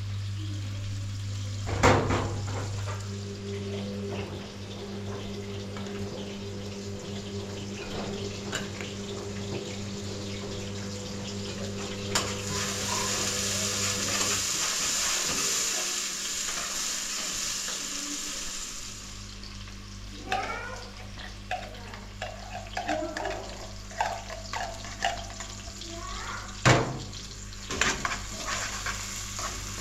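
Food frying in a pan, with stirring and a few sharp knocks of utensils. A louder, steady sizzle lasts several seconds in the middle, over a steady low hum.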